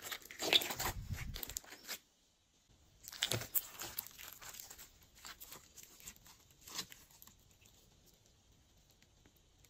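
Glossy slime squished and stretched by hand, giving sticky crackling and clicking. It stops briefly about two seconds in, picks up again, and fades to faint clicks near the end.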